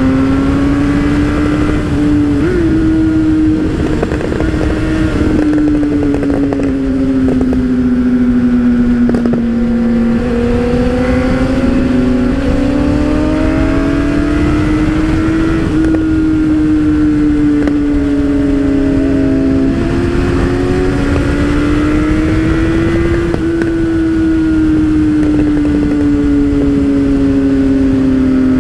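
Motorcycle engine running at a steady cruise, its note rising and falling gently with the throttle, with other motorcycles' engines heard alongside and wind rushing over the microphone.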